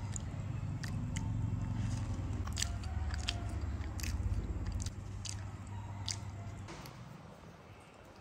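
Close-up crunching and sharp clicks as a spoon scoops salted egg yolk and pork filling from a ceramic bowl onto a crusty baguette slice, about eight clicks spread over several seconds. A low steady hum sits underneath and stops shortly before the end.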